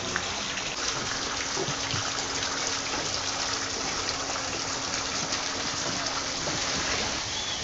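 Steady rushing of running water, with a faint steady hum underneath that starts about a second in and stops near the end.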